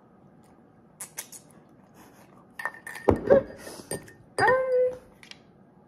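A metal spoon clinking and scraping against a ceramic bowl while eating, a few sharp clicks with heavier knocks in between. A short voiced sound with a falling pitch comes about four and a half seconds in.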